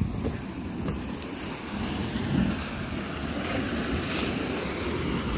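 Dragon's Mouth Spring, a hot spring in a cave, churning and sloshing steadily as hot water surges out with the steam, in low rumbling swells.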